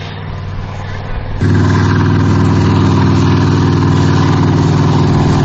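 Bergepanzer 2 armoured recovery vehicle's V10 diesel engine running steadily as the tracked vehicle drives through mud. About a second and a half in it becomes suddenly much louder.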